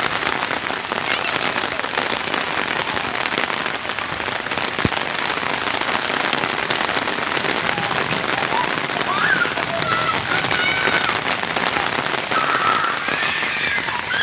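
Heavy rain falling steadily, a dense unbroken hiss, with a few faint high voices calling out in the second half.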